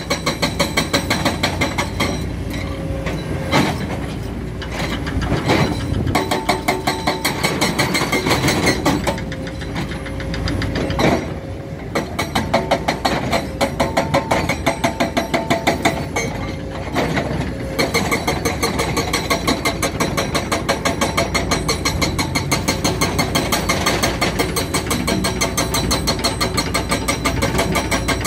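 Heavy diesel engines of a Hidromek 390LC excavator and an idling Mercedes-Benz dump truck running with a steady fast pulse, about two to three beats a second. A held tone rises over the engines from about 6 to 16 seconds, and a few sharp knocks come in the first half while the excavator digs.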